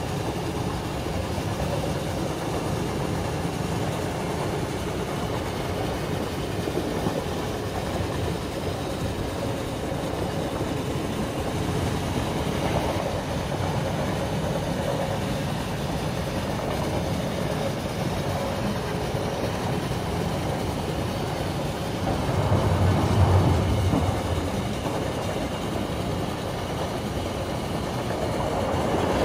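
Passenger train running along the rails, heard from inside a carriage: a steady running noise that swells louder for a couple of seconds about 22 seconds in.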